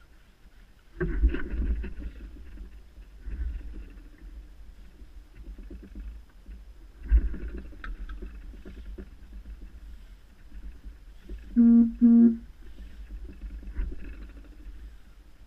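Low rumble on the microphone with rustles and knocks from an angler's clothing and pole-fishing gear. About twelve seconds in come two short pitched hoots, close together, the loudest sounds.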